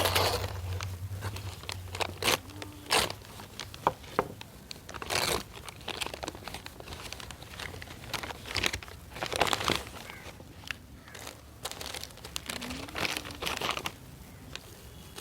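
Toy packaging being handled and opened: irregular crinkling and rustling with occasional tearing and sharp crackles.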